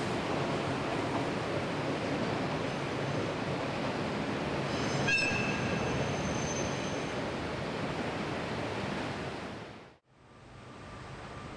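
A diesel locomotive hauling a Sanriku Railway railcar over a girder bridge: a steady rumble and rush of the running train, with a brief high wheel squeal about halfway through. The sound fades out shortly before the end, leaving a quieter background.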